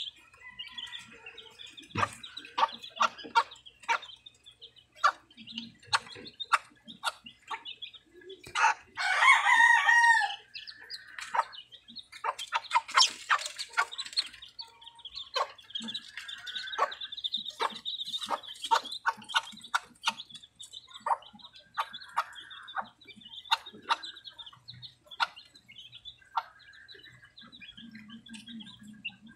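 Silver Sebright bantam hen clucking in many short, sharp notes while her chicks peep in thin, high calls. A rooster crows once about nine seconds in.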